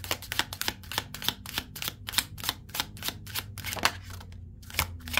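A tarot deck being shuffled by hand: a quick run of card clacks, about five a second, with a short pause near the end.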